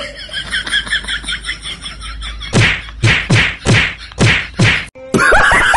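A hand whacking a man's back or head: six quick blows about half a second apart.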